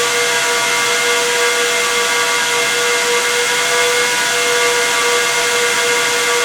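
Dell EMC PowerEdge XR12 server's six high-speed cooling fans running, a steady rushing hiss with several held whining tones layered over it, the strongest a low-mid hum-like whine. The tones shift slightly against one another, giving a slowly changing, eerie chord.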